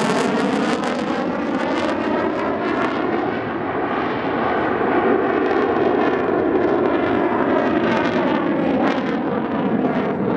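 Saab JAS 39 Gripen's Volvo RM12 jet engine during display manoeuvres: a loud, continuous jet roar with a slowly sweeping, phasing tone. The sharp hiss on top fades about a second in.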